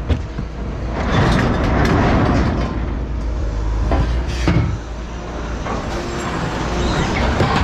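Scrap metal clanking and banging in a series of sharp knocks over a steady low engine rumble.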